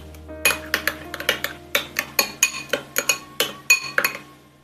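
A metal kitchen utensil clinking quickly and unevenly against a bowl, about five sharp, ringing clinks a second, with soft piano music underneath.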